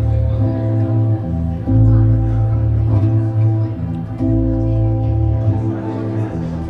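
Instrumental passage of a live song with no singing: chords held over a strong, steady bass, changing about every second.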